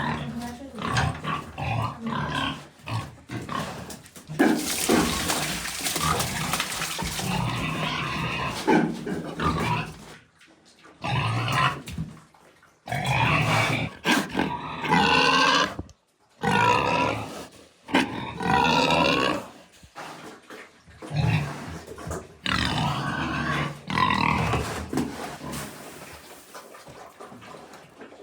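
Farm livestock calling: loud, wavering cries in bursts of one to two seconds, separated by short pauses, dying down near the end.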